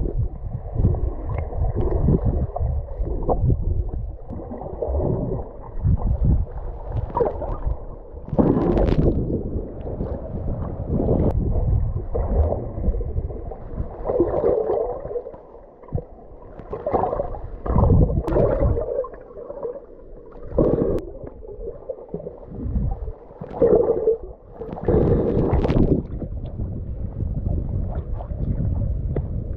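Muffled water sounds heard underwater: gurgling and sloshing that come in uneven surges.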